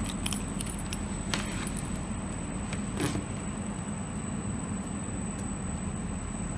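Steady low background hum with a thin, steady high whine. A few light clicks and rustles in the first three seconds come from small network-cable wires being handled and arranged.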